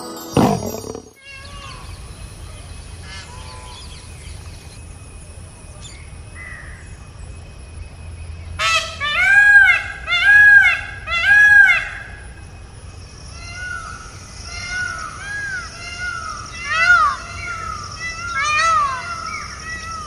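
Indian peacock giving loud honking calls, four in quick succession about halfway through, then a run of quieter, shorter calls, over a steady high-pitched background tone.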